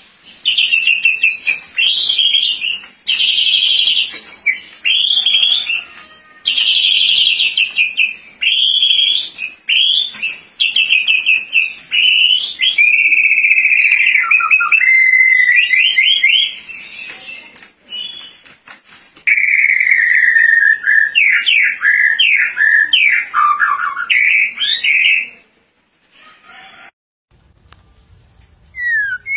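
White-rumped shama (murai batu, Medan strain) singing a long, loud run of rapid, varied whistled phrases and trills with short pauses, which stops a little after 25 seconds.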